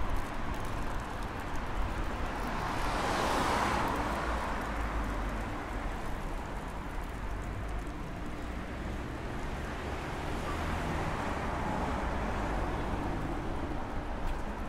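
Street traffic: cars passing on the road, one going by close about three seconds in and another more softly around ten seconds, over a steady low rumble.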